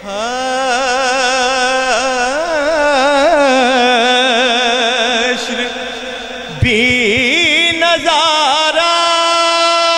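Man's voice singing a naat: a wordless, ornamented run whose pitch wavers up and down, then, from about nine seconds in, one long steady held note.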